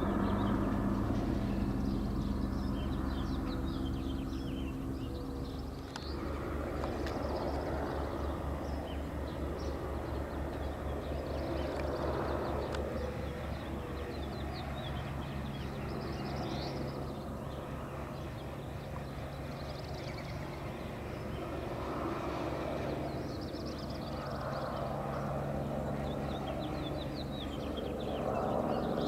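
Mercy Air medical helicopter circling overhead: a steady drone of engine and rotor with a rapid, even beat of the blades, swelling and easing gently as it passes round. Birds chirp over it.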